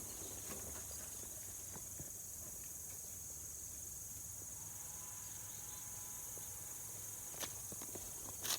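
Faint, steady high-pitched insect chirring outdoors, with a couple of soft clicks near the end.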